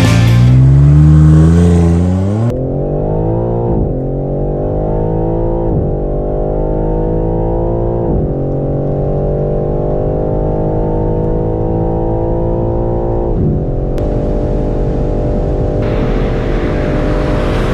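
BMW M3 Touring's twin-turbo inline-six, with an AC Schnitzer performance upgrade, launching from a standstill and accelerating hard through the gears. The engine note climbs steadily in each gear and drops at each of four upshifts, heard mostly from inside the cabin. Near the end the note holds steady above 300 km/h and a rushing noise joins it.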